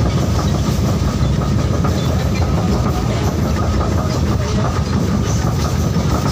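Steady low rumble of a moving Indian Railways passenger coach, heard from inside the carriage.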